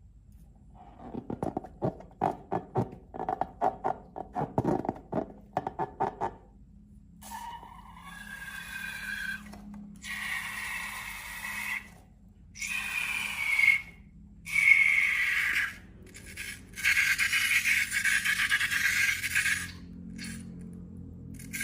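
Slime and rubber balloons being handled: a fast run of crackling clicks for about five seconds, then a series of long squeaky rubbing strokes with short pauses between them.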